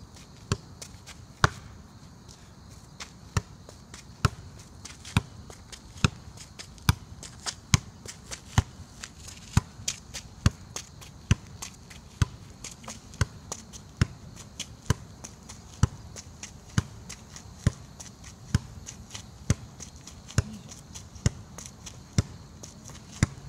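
A football juggled with the outside of the left foot: a steady run of sharp kicks, about one touch a second, some harder than others.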